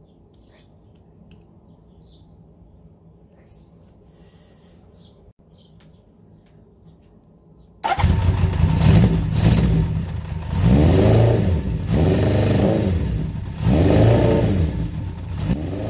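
Honda CB750's air-cooled inline-four motorcycle engine bursting into life about halfway through, then running and being revved up and back down several times. It is the test run after setting the points ignition timing and cleaning the advance mechanism, and it sounds good to the owner. Before the start there are only faint bird chirps.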